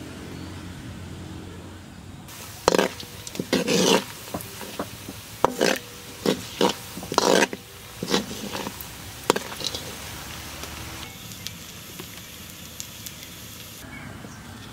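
Oil sizzling in a wok as food deep-fries. Between about three and nine seconds in there is a run of loud, sudden spits and crackles.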